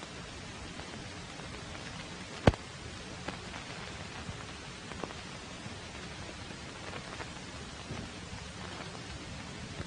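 Steady hiss and crackle of a worn 1940s optical film soundtrack, with scattered clicks and one sharp pop about two and a half seconds in.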